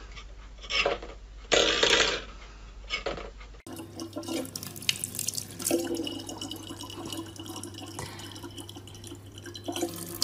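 A few short scraping noises, then a thin stream of water running steadily from a kitchen faucet into a plastic bottle, with a low steady hum under it.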